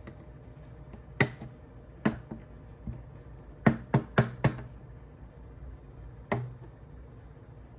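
A plastic measuring cup knocking against a plastic flour container and a stainless steel mixing bowl while flour is scooped out and tipped in. About seven sharp knocks, with a quick run of four about halfway through.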